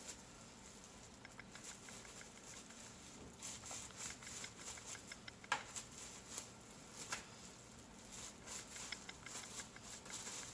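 Faint rustling and scattered light clicks of hands rolling up a sushi roll, with one sharper click about halfway through.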